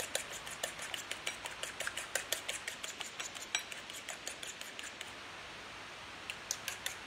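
A fork whisking beaten egg and milk in a ceramic bowl, its tines clicking quickly against the bowl at about five clicks a second. The whisking stops about five seconds in, followed by a few separate taps near the end.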